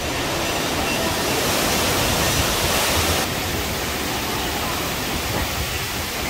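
Steady rush of water splashing from a water-park fountain into a pool. It is louder for the first three seconds, then drops a little.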